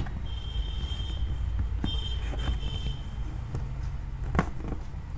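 A cardboard camera box being opened by hand: the already-cut lid is lifted and the cardboard handled, with light rubbing, a few soft clicks and one sharper knock about four seconds in. A thin high tone comes and goes twice in the first three seconds over a steady low hum.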